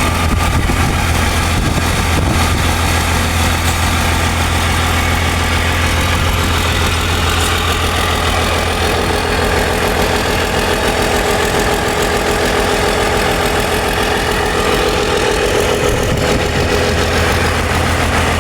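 An engine running steadily at idle, with an even, unchanging low hum.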